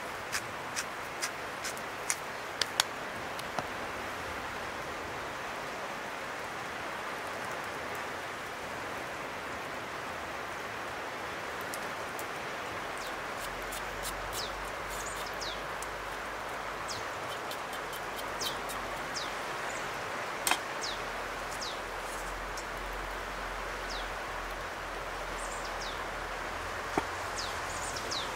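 Outdoor ambience: a steady rushing hiss, with short, high, falling bird chirps coming in often from about halfway through. A few sharp clicks sound in the first few seconds.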